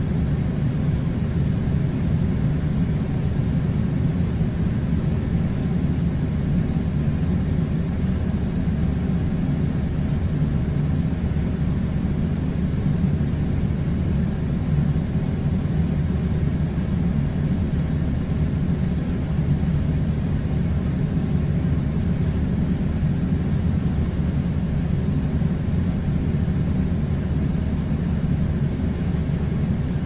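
Steady low rumble of an air conditioning unit running, unchanging throughout.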